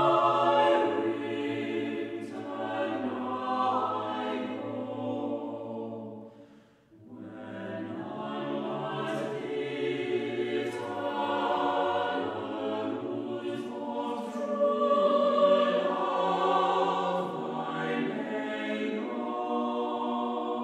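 Mixed chamber choir of sopranos, altos, tenors and basses singing a cappella in parts. The singing breaks off briefly about six and a half seconds in, then resumes.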